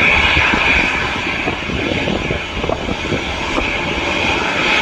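Jet engines of an Airbus A320-family airliner running as it taxis and turns on the runway: a loud, steady rush with a hissing whine on top and a rumbling low end.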